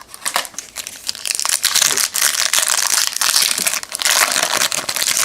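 Foil wrapper of a trading-card pack being torn open and crumpled, a dense crinkling that starts about a second in.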